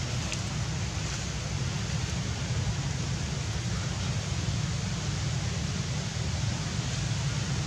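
Steady outdoor wind noise on the microphone: a fluttering low rumble under an even hiss.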